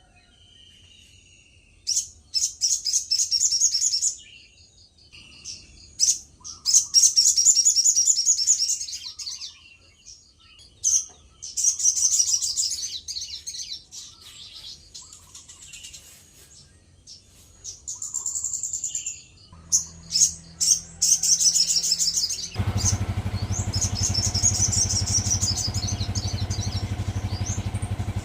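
A sogon singing in full song: bursts of rapid, high trilling phrases a second or two long, separated by short pauses. About three-quarters of the way through, a steady low rumble comes in under the song.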